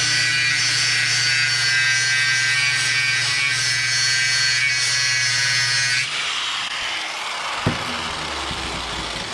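Handheld electric angle grinder grinding down a steel tie rod bar, a loud steady whine with sparks flying. The grinding stops about six seconds in, leaving a softer steady noise.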